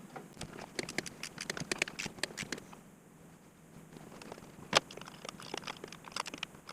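Scattered light clicks and taps of hand tools and engine parts being handled, with a quieter pause partway through and one sharper knock about five seconds in.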